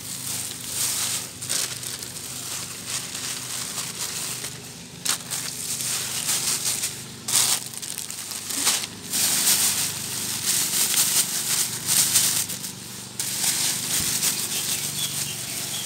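Thin plastic carrier bag crinkling and rustling in irregular bursts as it is handled.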